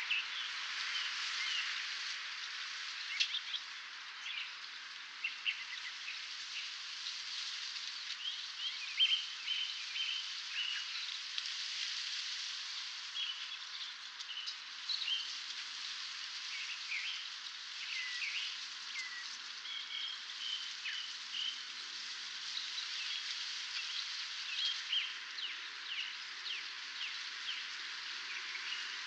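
Dawn chorus of several songbirds: many short chirps and quick sliding notes from different birds, scattered throughout over a steady hiss.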